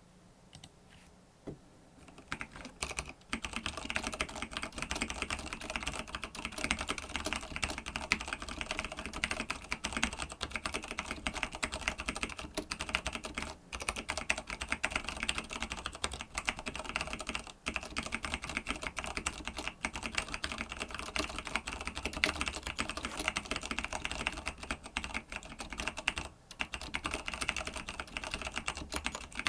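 Fast, continuous typing on a TG3 BL82 keyboard with stock vintage Cherry MX Clear switches, tactile non-clicky switches giving a dense run of keystroke clacks. It starts about three seconds in, with a few brief pauses.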